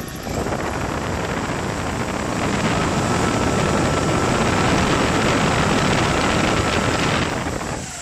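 Cordless electric drill spinning a small model generator whose bearings have no oil on them yet. It runs steadily, gets louder about two and a half seconds in with a thin steady whine, then cuts off about seven seconds in and spins down.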